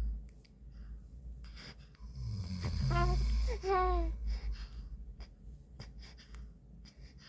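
A man snoring, loudest about two to four seconds in, with a baby making two short high-pitched vocal sounds in the middle of the snore.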